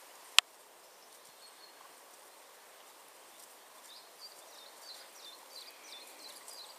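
Rural outdoor ambience with a small bird chirping repeatedly from about halfway through, a few short chirps a second. A single sharp click, the loudest sound, comes near the start.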